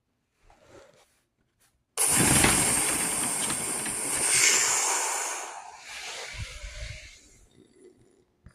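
A vocal sound effect for a toy car: a sudden loud hissing rush starts about two seconds in, holds for about three seconds, then fades away, with a low rumble near the end.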